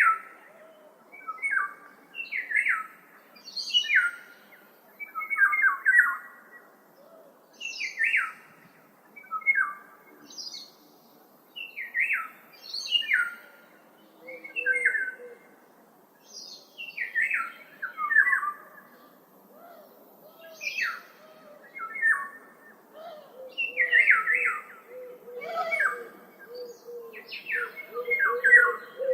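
Birds calling over and over: short, sharp calls that sweep downward in pitch, one burst every second or two.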